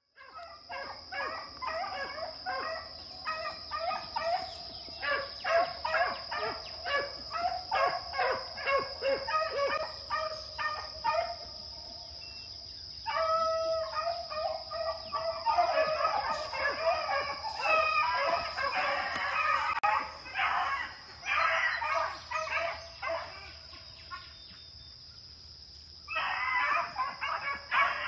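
Beagles baying on a rabbit's track: fast, overlapping runs of yelps and bawls that ease off briefly about halfway and again near the end, then pick up. A steady high-pitched whine runs underneath.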